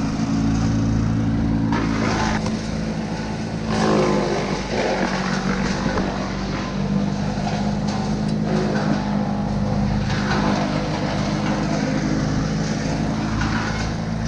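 An engine running steadily at constant speed, with a couple of brief louder noises over it about two and four seconds in.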